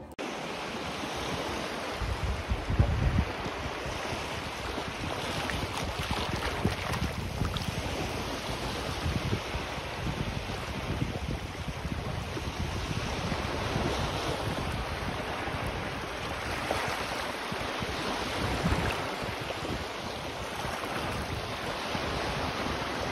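Sea surf washing in over a muddy, rocky shore, with wind buffeting the microphone, heaviest about two to three seconds in.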